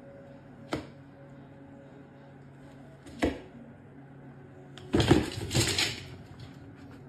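Two sharp knocks about two and a half seconds apart, then a louder clatter lasting about a second.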